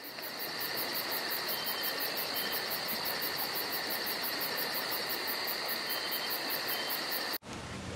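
Chorus of insects: a steady shrill trill overlaid with very high, fast, evenly pulsing chirps, about seven a second. It cuts off abruptly about seven seconds in, giving way to fainter background noise.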